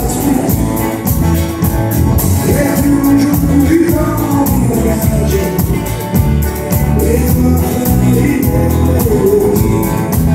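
Live country music: a man singing while strumming an acoustic guitar, with the band's bass and a steady beat underneath.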